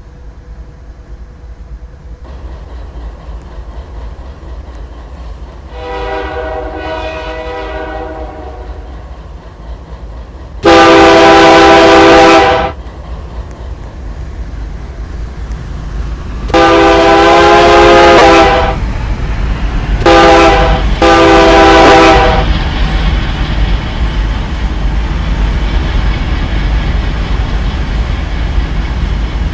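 Diesel locomotive approaching and sounding its multi-note air horn: one fainter blast, then long, long, short, long, the grade-crossing signal. The engine's rumble and the rolling noise of the train on the rails carry on after the horn.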